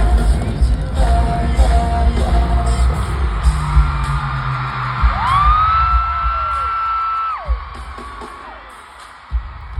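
Live pop music with heavy bass. About five seconds in, a high voice yells a long note that rises, holds for about two seconds and falls away as the music thins out.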